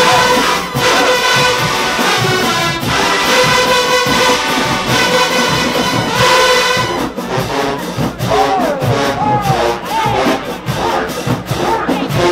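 Marching band brass section holding long, loud chords. About seven seconds in the horns drop out, and drum strikes carry on under voices.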